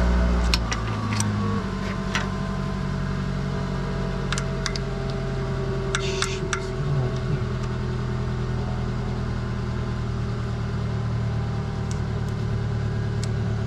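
A car engine settling from its start-up into a steady idle, with a few sharp clicks about six seconds in.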